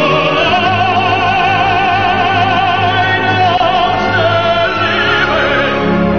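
Operatic singing with accompaniment: one voice holds a long note with wide vibrato for about three seconds, then moves on to other notes near the end.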